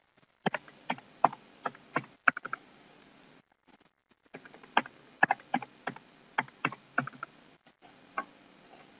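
Keystrokes on a computer keyboard as a password is typed and then typed again to confirm it: a quick run of about ten key taps, a pause of about two seconds, then a second run of about ten taps. A single click follows near the end.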